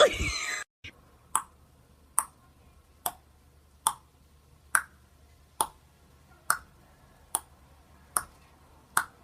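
A short loud sound with a falling pitch at the very start, cut off suddenly. Then a sharp click repeats at an even pace, a little more than once a second, about ten times.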